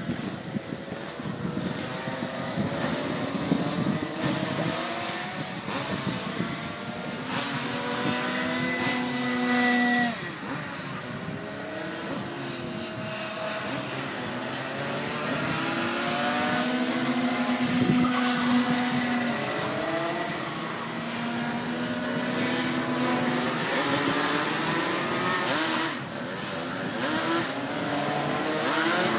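Several Rotax Max 125 cc two-stroke kart engines racing, their notes rising and falling as they accelerate and slow. A few times an engine holds a steady high pitch for two or three seconds, then drops off sharply as it lifts off.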